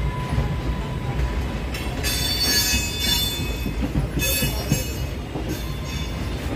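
Passenger train running on the rails with a steady low rumble, and high-pitched wheel squeal that comes in bursts about two seconds in, again around four seconds, and briefly near the end.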